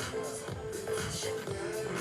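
Background music with a steady beat and a simple melody moving between a few held notes.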